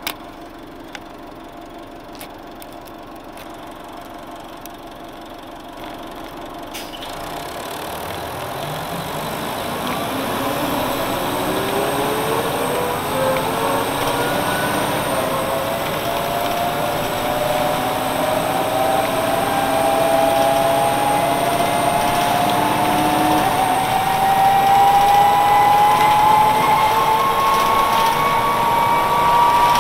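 1999 Nova Bus RTS-06 transit bus, with a Detroit Diesel Series 50 diesel and ZF Ecomat automatic transmission, pulling away and gathering speed. It runs quietly for the first several seconds, then from about eight seconds in a whine rises slowly and steadily in pitch and grows louder.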